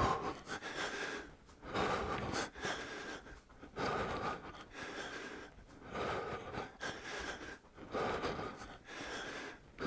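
A man breathing hard and out of breath while hopping in place during a warm-up, with a loud breath roughly every one to two seconds.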